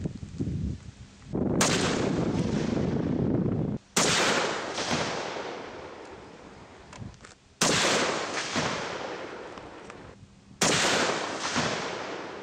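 Gunshots from a firearm at target practice: four shots about three seconds apart, each followed by a long rolling echo that dies away.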